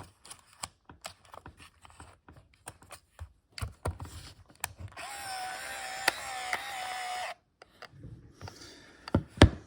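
Clicks and handling of a 35mm point-and-shoot camera's film door and film, then about five seconds in the Pentax IQZoom 130M's small electric motor whirs with a steady whine for about two seconds and stops abruptly, typical of the film auto-advancing to the first frame after loading. Two sharp clicks come near the end.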